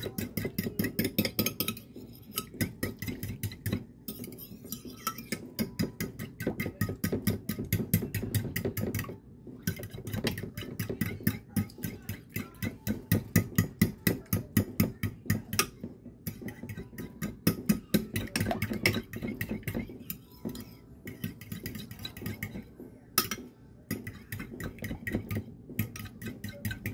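Eggs being beaten in a bowl with a utensil: quick, rhythmic clinking strokes at about five a second, broken by a few brief pauses.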